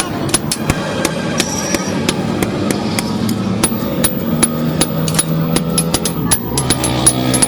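Blacksmith's hammer striking metal on an anvil, many sharp blows at an uneven pace of several a second.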